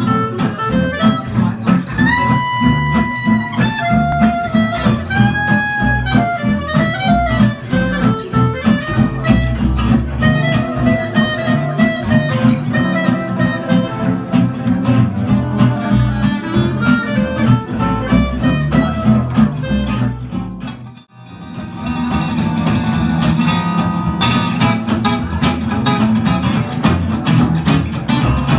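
Gypsy swing quartet playing: a clarinet carries the melody, with held and sliding notes, over steadily strummed rhythm guitar and double bass. About 21 seconds in, the music breaks off briefly and a different passage starts, led by two acoustic guitars.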